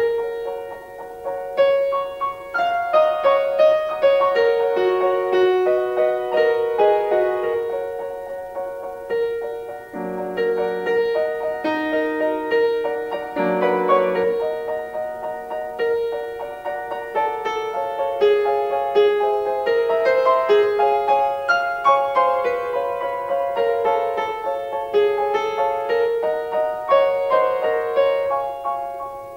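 Grand piano playing a solo classical piece: a flowing melody over steadily repeated chords, with deeper bass notes struck around 10 and 14 seconds in.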